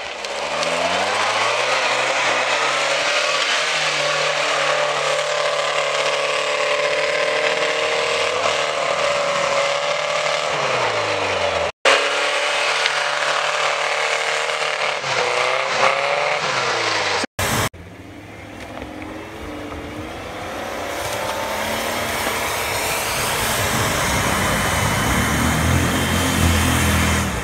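Off-road 4x4 engines working hard up a snowy slope, the revs rising and falling. In the last stretch a Nissan Patrol Y60 pulls uphill, its engine climbing steadily over the rush of tyres churning through deep snow.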